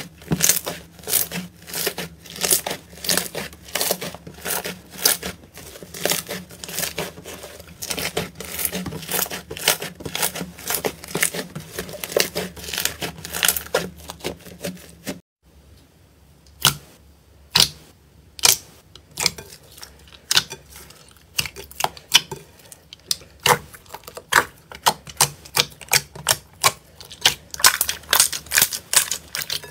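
Hands squeezing and poking slime, with quick, sticky popping and crackling of trapped air, several pops a second. The sound stops briefly about halfway, then returns as slower, scattered pops from a second, clear slime that grow busier near the end.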